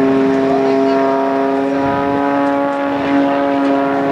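Pitts aerobatic biplane's engine and propeller running in flight with a nearly steady droning pitch.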